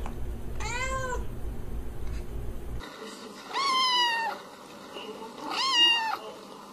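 A calico cat meows once, briefly, about a second in. Then a ginger-and-white kitten meows twice, about two seconds apart, the second call the louder.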